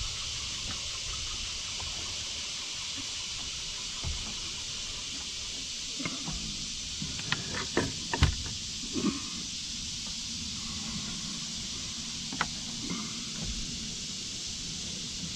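Someone climbing a wooden ladder and pushing up a hinged wooden trap door: a cluster of short wooden knocks and clicks about six to nine seconds in, and one more sharp knock a few seconds later, over a steady high hiss.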